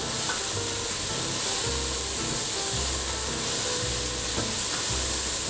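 Diced onion, carrots and celery sizzling in hot oil in a stainless steel pot as a spatula stirs them, a steady hiss, with background music and its recurring low notes underneath.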